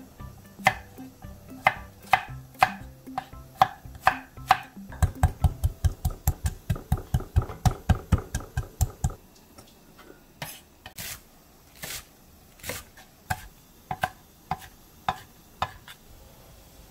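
Chef's knife chopping garlic cloves on a wooden cutting board, mincing them finely: spaced knocks at first, then a quick even run of about five chops a second for about four seconds, then slower scattered chops.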